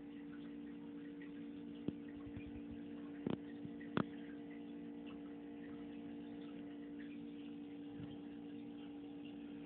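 A steady low hum with a few sharp clicks between about two and four seconds in.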